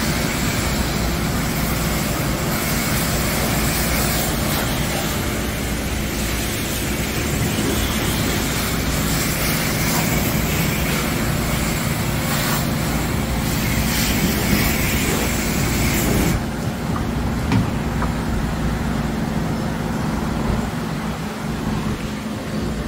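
Automatic car wash tunnel equipment running: a steady mechanical noise with a low hum and a hissing spray, the hiss falling away sharply about two-thirds of the way through.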